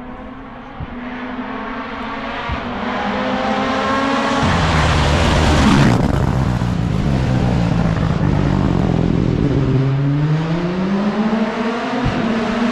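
Turbocharged four-cylinder rally car on a gravel-and-tarmac special stage: the engine note drops as it brakes and shifts down, the car passes close by about six seconds in, then its pitch climbs steadily as it accelerates away near the end.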